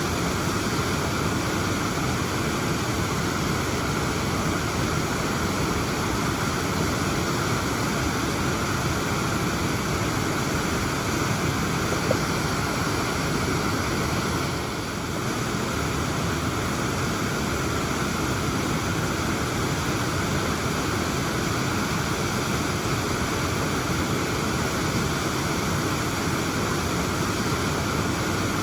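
Waterfall: a steady, unbroken rush of falling water, dipping slightly for a moment about halfway through.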